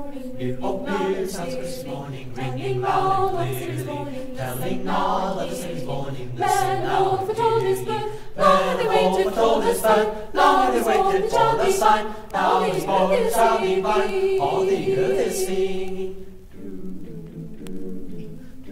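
Mixed choir of sopranos, altos, tenors and basses singing, several parts moving over one long held note. The sound thins and softens about sixteen seconds in.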